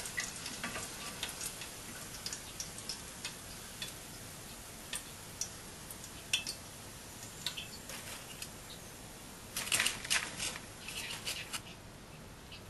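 Hot frying oil left in a pot crackling and popping in scattered, irregular small pops after the fish is lifted out, with a denser run of crackles about ten seconds in.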